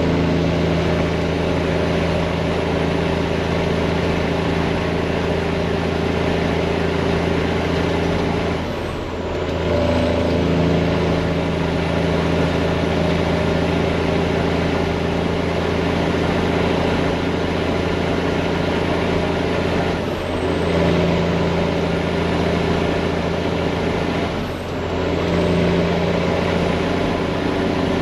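Detroit diesel semi-truck engine pulling hard under load up an incline, with a loud exhaust note and a thin, high turbo whistle. The sound briefly dips three times, about a third of the way in and twice near the end, where the driver changes gear and the engine picks back up.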